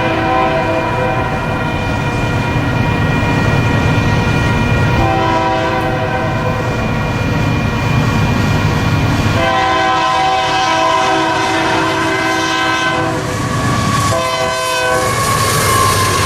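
Union Pacific freight locomotive's air horn sounding a series of blasts: one ending about a second in, a short one about five seconds in, a long one of about three and a half seconds near ten seconds in, and a short one near the end, over the steady rumble of the passing train.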